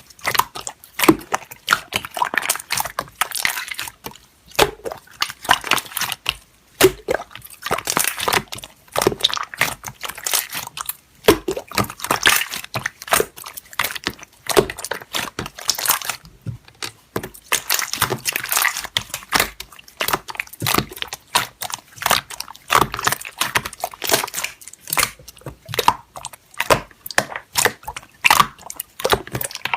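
Slime being squeezed and poked by hand, making a dense, irregular run of sticky crackling and popping clicks.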